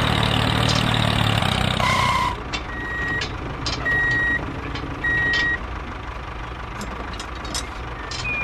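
A truck engine runs and then stops about two seconds in. A reversing alarm then beeps three times, about a second apart, with a few light clicks after.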